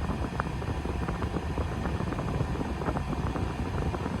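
2019 Nissan Frontier running at idle on remote start with the air conditioning blowing, a steady low rumble.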